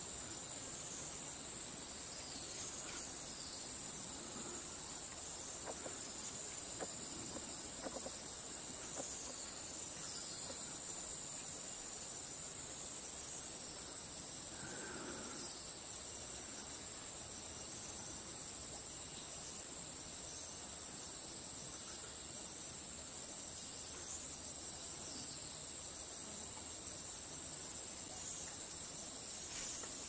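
A steady, high-pitched chorus of forest insects, unbroken throughout.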